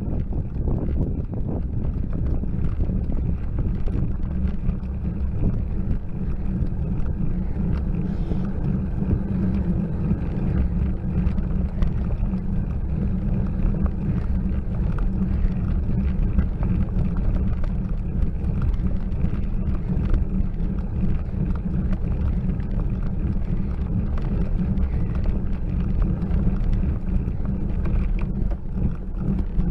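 Steady low rumble of wind and road noise on a bicycle-mounted camera's microphone as a bicycle climbs slowly.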